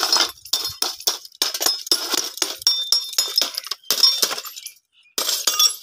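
Thick glass being struck and broken up, its shards clinking and cracking against each other in a rapid, irregular run of sharp ringing clinks, about four or five a second, with a short pause near the end.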